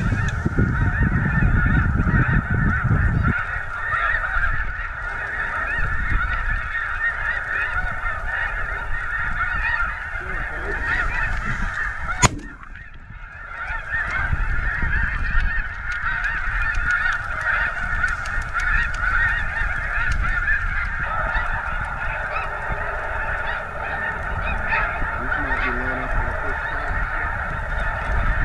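A large flock of snow geese calling continuously, a dense chorus of overlapping honks. There is a low rumble in the first three seconds, and a single sharp click about twelve seconds in, after which the chorus briefly drops away.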